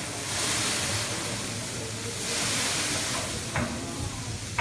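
Scallops sizzling on a hot teppanyaki iron griddle, a steady hiss that swells twice, with a short click near the end.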